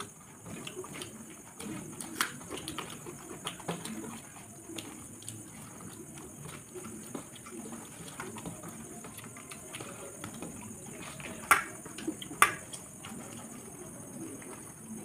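Two people eating rice and egg curry by hand from steel plates: wet chewing and squelching of food being mixed, with many small clicks and two sharper clicks about a second apart past the middle.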